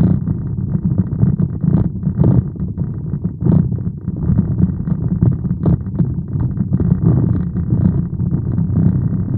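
Steady low rumble of a car's cabin while driving, with a few scattered light taps.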